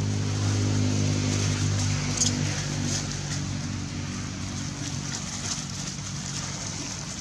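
An engine running steadily with a low hum, fading away about halfway through, over a faint hiss.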